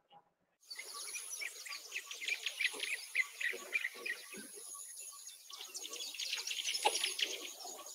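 Nature ambience of many small birds chirping, over a high, steady insect trill that comes and goes. It starts about a second in, after a brief silence.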